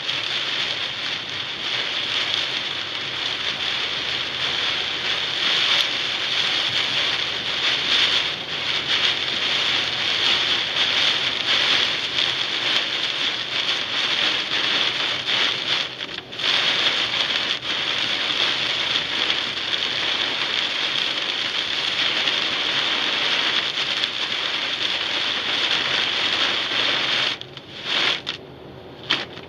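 Heavy rain beating on a car's windshield and roof, heard from inside the car as a dense, steady hiss. It drops away briefly about halfway through and again near the end as the car passes under overpasses.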